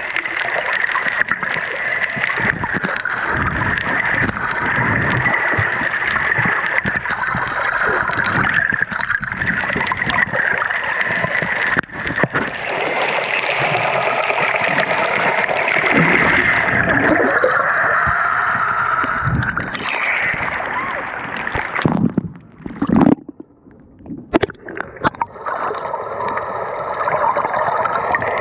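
Water gurgling and sloshing over an underwater action camera held below the surface while snorkeling. The water noise is steady and dense, drops away briefly about three quarters of the way through, then picks up again.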